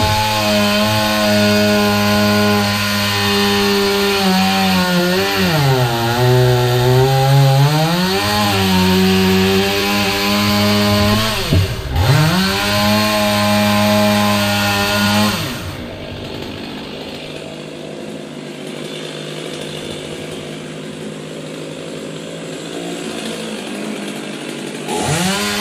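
Chainsaw running at high revs, its pitch sagging as it bogs down in a cut and briefly dropping away and picking up again. About fifteen seconds in it stops, leaving a quieter steady noise, and near the end a saw revs up again.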